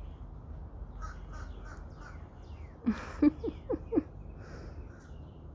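A three-week-old silver Persian kitten gives a quick run of five short squeaky mews about three seconds in, over a low steady hum.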